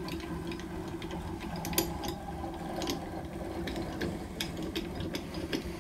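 A hand-cranked ball screw moves a drill press table along its linear rails: a steady mechanical whir with scattered light clicks and ticks. The travel runs even, with no tight spots.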